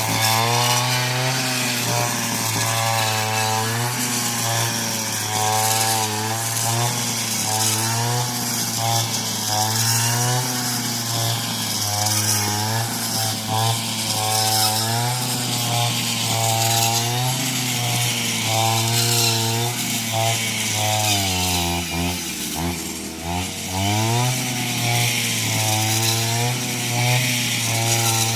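A small petrol engine of a cutting tool runs at high speed, its pitch wavering as the load changes. About 21 seconds in it bogs down, the pitch dropping sharply, then picks up again.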